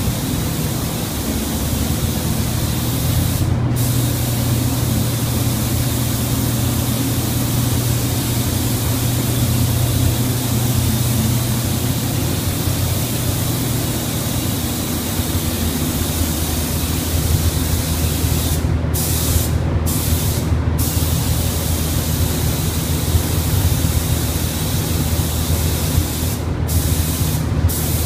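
Automotive paint spray gun hissing with compressed air as it lays down paint. The hiss breaks off briefly several times as the trigger is let go between passes, over a steady low hum.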